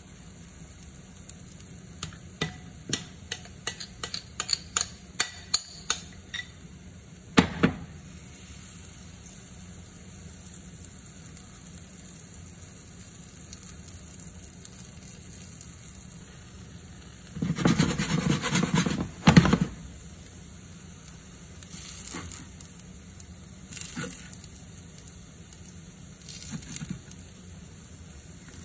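Cooking sounds of potato pancakes being made: a metal utensil taps against cookware in a quick run of clicks that speeds up, then gives one louder knock. A couple of seconds of scraping and stirring follow later, over a faint steady sizzle.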